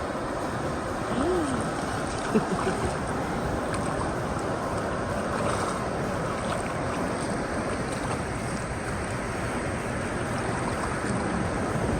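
Ocean surf breaking with wind blowing on the microphone, a steady rushing noise, with a short faint rising-and-falling call about a second in.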